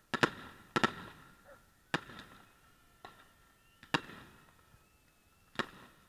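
Aerial firework shells bursting: about six sharp bangs at irregular intervals, each trailing off in an echo, with a faint high whistle in the middle.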